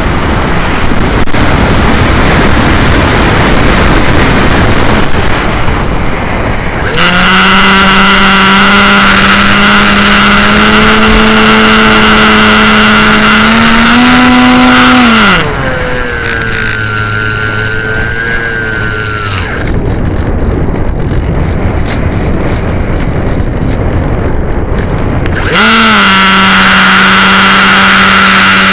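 Onboard an AXN RC model plane: its electric motor and propeller running at a steady whine, under a loud rush of wind on the microphone. The motor starts about seven seconds in, winds down about halfway through, leaving only the wind rush, and spins up again near the end.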